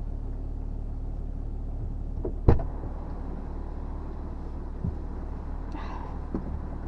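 Stage 2-tuned BMW idling steadily, heard from inside the cabin. One sharp knock comes about two and a half seconds in, and near the end there are the rustles and light bumps of a passenger getting into the seat.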